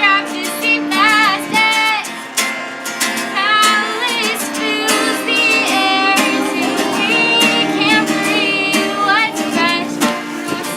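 Music: a high singing voice over a plucked acoustic guitar, with a steady run of sharp plucked or struck notes.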